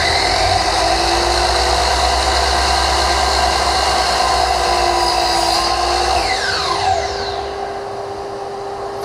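Miter saw motor running at full speed through a cut, then released about six seconds in, its blade spinning down with a falling whine. A steady hum continues underneath.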